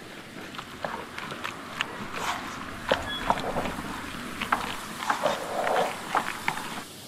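Wooden spatula stirring a stiff, wet dough in a stainless steel bowl: irregular scrapes and knocks of wood against the metal, mixed with squelching of the dough. The stirring stops abruptly just before the end.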